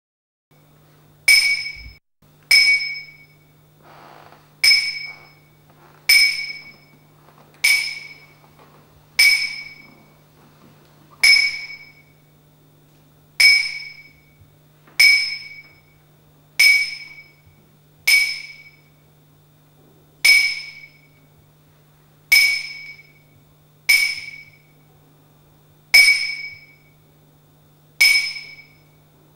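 A high, glassy chime is struck over and over, about every one and a half to two seconds, each strike the same note and dying away quickly. A low steady hum runs beneath it.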